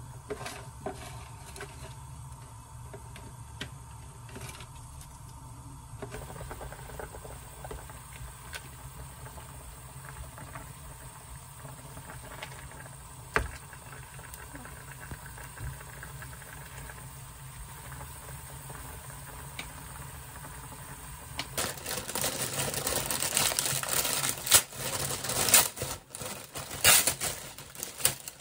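Pork belly simmering in broth in a pan on a gas burner: a low steady sound with faint ticks and one sharp click about halfway through. About three-quarters of the way in, a plastic produce bag starts crinkling and rustling loudly as it is handled and opened.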